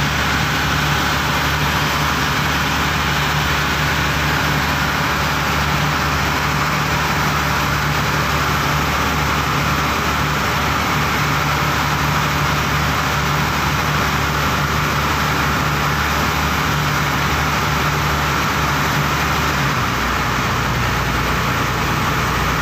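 Pump boat (motorized outrigger bangka) engine running at a steady drone, with the rush of water from the boat's wake. The engine note drops slightly about twenty seconds in.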